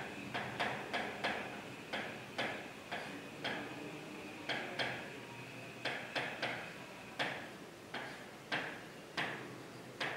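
Marker tapping and scraping on a writing board as words are written: irregular sharp taps, two or three a second, each with a short scratch.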